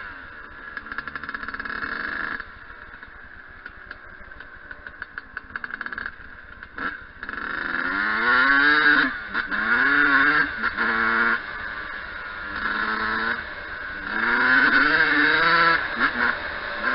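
Yamaha YZ125 two-stroke single-cylinder dirt bike engine. For the first several seconds it runs low with a crackling, ticking sound near idle. From about eight seconds in it revs up and falls back in several loud bursts of throttle.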